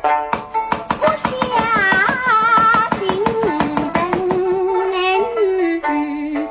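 Background music: a wavering melodic line over a fast run of sharp percussive clicks that thins out after about three seconds.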